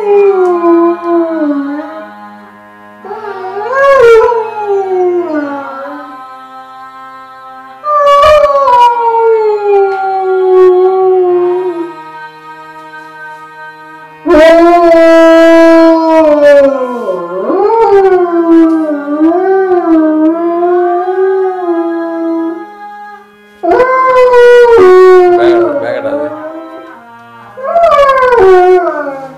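Yellow Labrador retriever howling, a series of about six long howls that each start high and slide downward, the longest one in the middle wavering up and down. Background music with long held notes plays under the howls.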